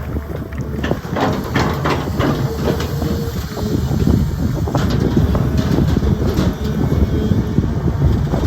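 Sany excavator's diesel engine running, with clanks and scrapes from the bucket and arm as it digs, coming in a cluster about a second in and again around five seconds.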